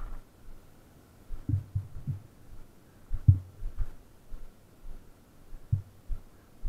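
Irregular dull low thumps and knocks from the Yamaha TT600 enduro bike jolting over rocks on the trail, with no engine running.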